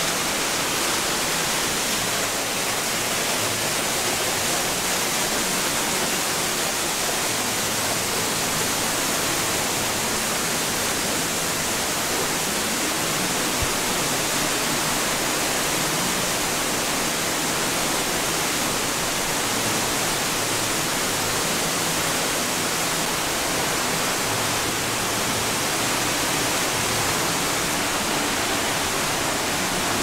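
Kaminari-daki waterfall pouring down close by: a steady, dense rush of falling water crashing onto rock and splashing, heard from the path behind the curtain of water.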